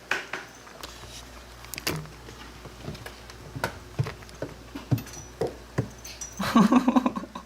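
Cats playing on a hard floor: scattered light taps and clicks of paws and batted objects, with a denser, louder scuffle about six seconds in.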